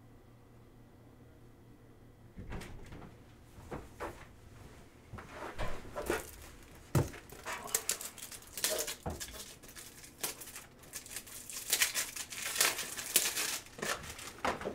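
Plastic packaging crinkling and rustling as it is handled, in irregular bursts that start a couple of seconds in, with a few sharp clicks and knocks.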